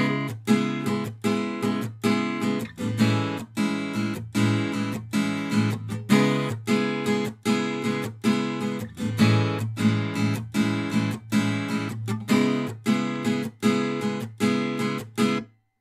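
Instrumental music: a guitar strummed in a steady rhythm of quick strokes, with no singing. It stops abruptly shortly before the end.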